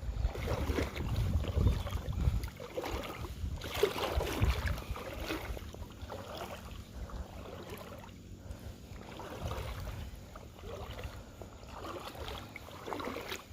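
Legs wading through river water: irregular swishing and sloshing with each step, strongest in the first couple of seconds and again around four seconds in.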